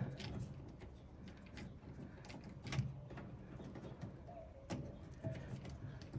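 Scattered light clicks and taps of a screwdriver working terminal screws and breakers in a metal electrical panel. A bird calls briefly, twice, about four and five seconds in.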